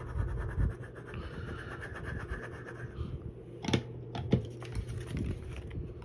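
Cardstock papercraft pieces being handled and glued on a craft mat: light scratching and rubbing of paper, with two sharp taps a little over half a second apart near the middle, over a steady low hum.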